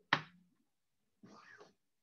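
Faint small noises picked up by a video-call microphone: a sharp click just after the start, then about a second later a short breathy sound that rises and falls in pitch.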